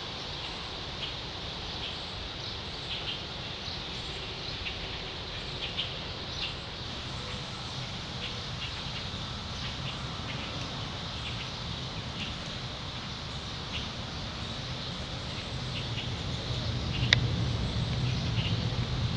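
Outdoor ambience of small birds chirping repeatedly over a steady background hiss. A low rumble swells in the last few seconds, with a single sharp click near the end.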